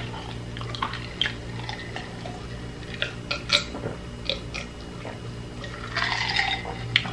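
A person drinking from a glass of ice water, with small clicks of ice and mouth sounds and swallowing about six seconds in, over a steady low hum.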